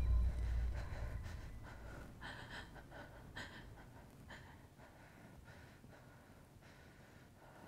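A woman breathing in short, uneven, frightened gasps that grow fainter, while a low rumble dies away in the first second.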